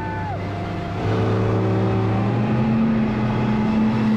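Outboard motor of a fishing boat running at speed over open water, a steady low engine drone with rushing spray from the wake. It gets louder about a second in and rises slightly in pitch a little after two seconds. A brief high wail fades out in the first half-second.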